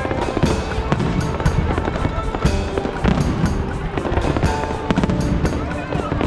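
Fireworks going off in a dense, irregular string of bangs and crackles, with a music melody playing along.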